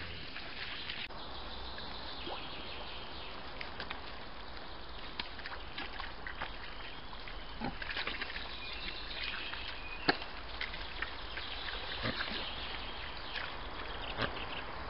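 Wild boar wallowing and rooting in wet mud: squelching and trickling of mud and water with scattered sharp clicks, over a steady hiss.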